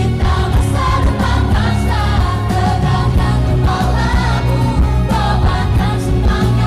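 A pop song with sung vocals over a steady bass and backing instruments.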